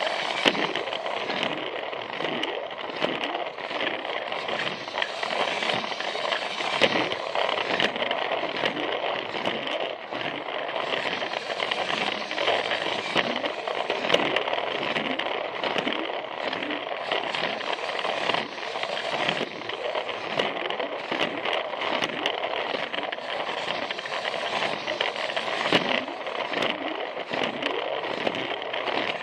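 Plarail battery-powered toy train running on plastic track: a steady whir from its small motor and gearbox, with frequent clicks and clatter as the wheels roll over the track joints.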